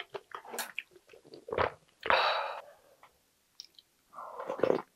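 Close-miked wet chewing of a mouthful of instant ramen noodles, with many small mouth clicks and squelches. Near the end, noodles and broth are slurped from a wooden ladle.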